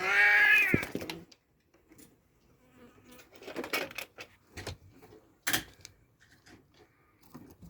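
Oriental kitten giving one loud meow that rises and falls in pitch over about a second, followed by scattered soft taps and scuffs from kittens playing.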